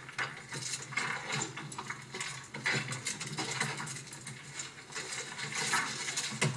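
Irregular clattering and knocking on the soundtrack of markhor goats fighting on a rocky cliff, played through a television's speakers.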